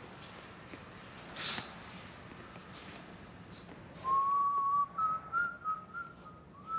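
A person whistling a short, wavering tune of a few stepped notes, starting about four seconds in, after a brief soft rustle.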